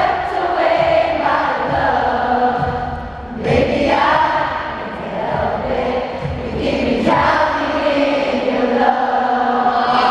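Live acoustic pop song with a large arena crowd singing the melody along in unison, many voices together over acoustic guitars, in phrases a few seconds long.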